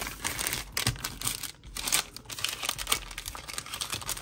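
Paper and banana-leaf wrapping crinkling in quick, irregular crackles as a pastel en hoja is rolled up by hand.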